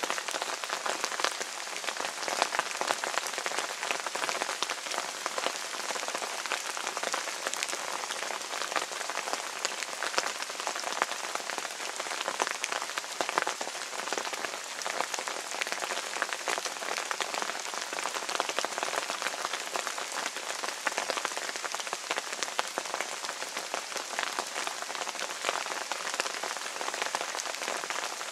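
Steady rain falling on a still-wet acrylic painting, a dense, even hiss of many close individual drop hits.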